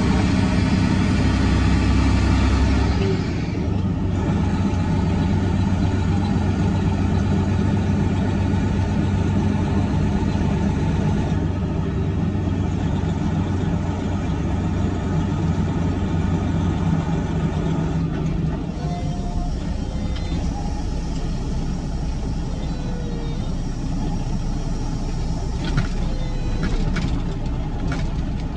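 A log truck's Detroit diesel engine running on the road, heard from inside the cab. Its note drops to a quieter level about three seconds in as the truck slows, and a few sharp clicks come near the end.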